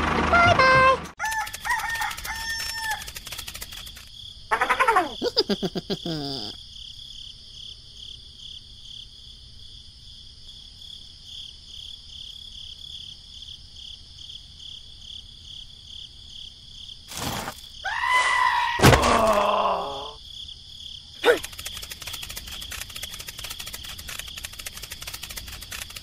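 Two pitched animal calls, one about five seconds in and one near eighteen seconds, over a steady, pulsing high-pitched trill, with a couple of sharp clicks.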